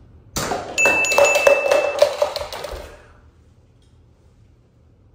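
Bright ding-and-clink sound: a held, high ringing tone over a quick run of metallic clinks, starting about half a second in and lasting about two and a half seconds.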